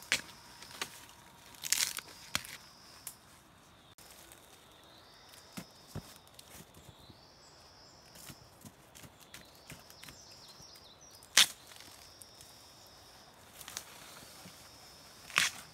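A few sharp snaps, about four in all, the loudest two-thirds of the way through, over light rustling of dry leaves: bamboo shoots and dry bamboo stems being broken off and trodden on while picking shoots.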